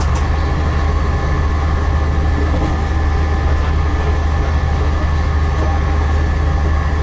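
Diesel railcar running, a steady low engine drone with a few constant humming tones over even rolling noise.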